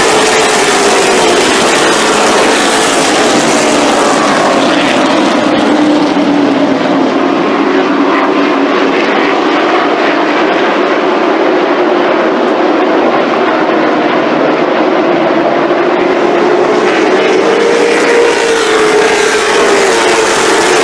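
Late model stock cars' V8 engines running as the field circles the oval, a loud steady drone whose pitch sags and then climbs again. The sound goes duller about six seconds in and brightens again near the end as cars come back past.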